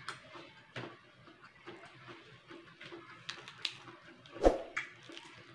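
Close-up eating sounds: chewing and lip smacks with small scattered clicks, and fingers tearing apart a fried tuna (tulingan). One sharper knock about four and a half seconds in.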